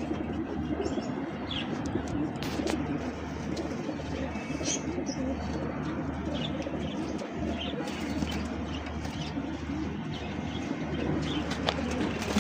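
Domestic pigeons cooing continuously, with scattered brief high chirps.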